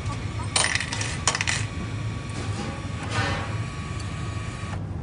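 Coins clinking into the coin slot of a meal-ticket vending machine: a few sharp metallic clinks with a brief ring about half a second to a second and a half in, then a fainter rattle around three seconds.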